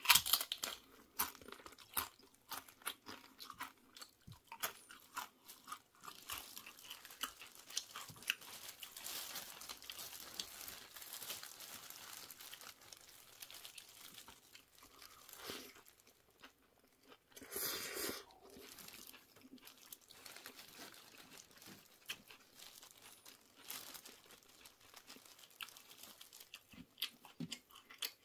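Close-miked eating: tortilla chips crunching and a burrito being bitten and chewed, with many small crackles and wet chewing sounds. About two-thirds of the way through there is a louder burst of noise lasting about a second.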